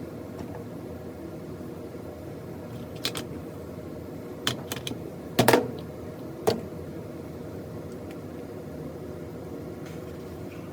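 Several short clicks and knocks from hands handling dryer control-panel parts, the loudest about halfway through, over a steady low background hum.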